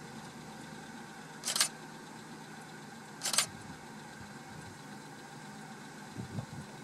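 Vehicle engine idling steadily, with two short bursts of camera shutter clicks about a second and a half and three seconds in. A brief low rumble comes near the end.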